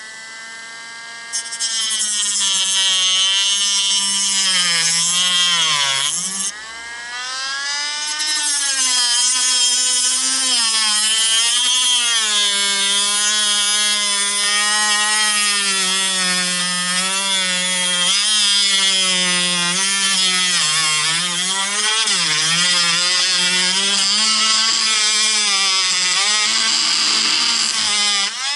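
Dremel rotary tool cutting the fuel pickup away from the regulator holder of a fuel pump assembly: a steady high motor whine with a grinding hiss, the pitch sagging and recovering as the cutting wheel is pressed into the material. It eases off briefly about six seconds in, then cuts on until it stops near the end.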